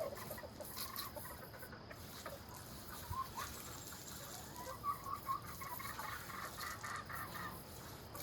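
Chickens clucking, with a quick run of short clucks in the second half.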